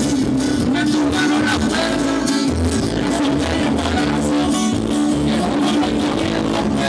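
Live band music with guitar playing steadily.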